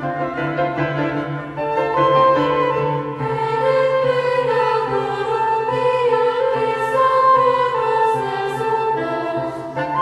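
Classical-style instrumental music with flute and bowed strings playing a slow, flowing melody.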